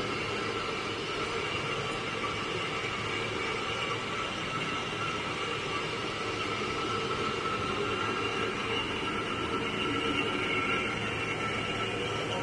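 CNC lathe machining a roll chill mold: a steady cutting and running noise with several constant high tones.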